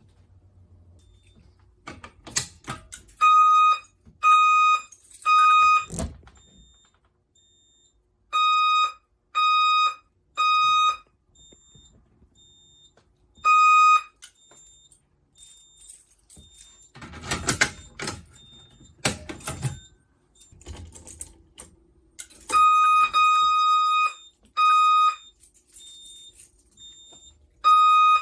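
Notifier NFS2-640 fire alarm system sounding its code-3 (temporal-3) evacuation tone during a walk test: steady half-second beeps about a second apart, mostly in groups of three. The groups come irregularly, and one stands alone as a single beep. Clicks and rattles fall between the groups, heaviest in a cluster about two-thirds of the way through.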